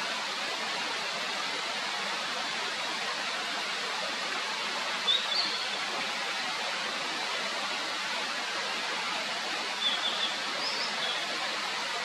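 Steady rush of a mountain stream, with a small bird giving two short bursts of high notes, about five seconds in and again near the end.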